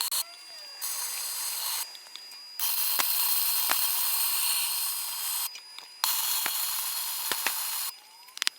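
Arc welding on steel burner sleeves: a steady hissing crackle in three runs of about one to three seconds each, each starting and stopping abruptly, with a few faint ticks.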